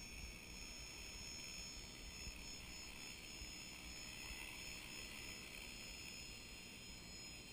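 Thunder Tiger E325 Super Cobra electric RC helicopter in flight, heard from a camera mounted on it: a faint, steady high-pitched whine from the motor and drive, swelling slightly midway, over a low rumble.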